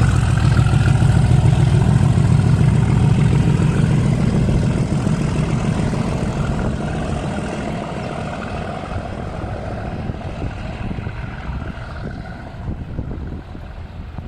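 Ex-Class 37 locomotive 97304's English Electric V12 diesel engine working under power as the train pulls away, its low engine note loud at first and then fading steadily into the distance.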